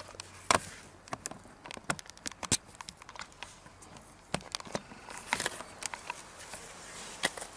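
Irregular light clicks and knocks, several a second at times, from parts and packaging being handled while an oil filter is changed.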